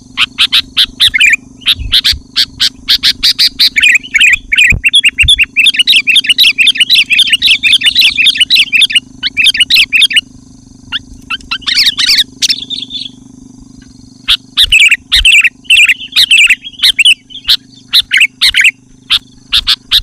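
Sooty-headed bulbul singing loudly and excitedly: rapid runs of bright chattering notes, with short breaks about halfway through and again about two-thirds of the way in.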